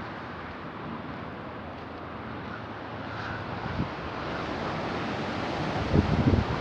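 Wind blowing across a microphone over a steady rushing background, with low, gusty buffeting that grows stronger near the end.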